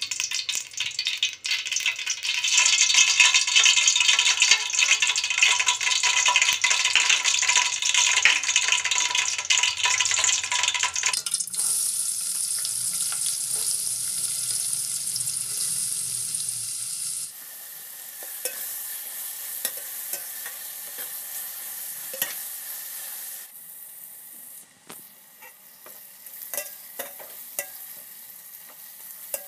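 Vegetable oil and sliced onions frying in a large aluminium pot, a steady sizzle that is loudest in the first third and drops in abrupt steps. Near the end the sizzle is quieter, with short clicks and scrapes from a slotted spoon stirring the onions against the pot.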